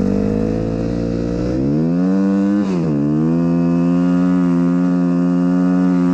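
Snow bike's dirt-bike engine running under load: the revs climb about two seconds in, dip briefly near three seconds, then hold steady at a higher pitch.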